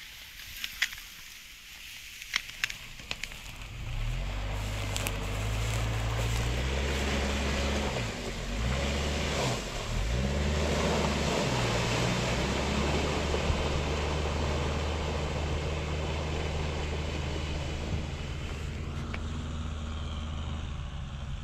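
Suzuki Vitara SUV engine running and revving as the vehicle pulls away through mud and shallow water, its pitch shifting for a couple of seconds before settling into a steady drone. A few sharp clicks come before the engine note picks up.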